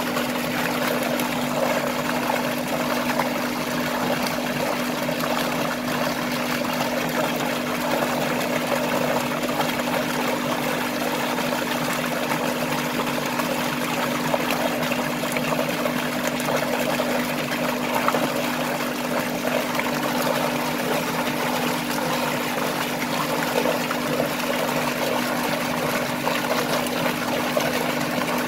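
A thick stream of water gushing steadily from a large pipe outlet and splashing into a concrete tank, over a constant low hum.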